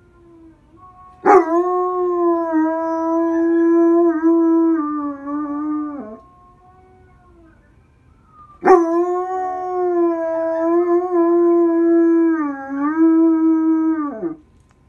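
German Shepherd howling: two long, steady howls of about five seconds each, each starting abruptly and dropping in pitch as it ends.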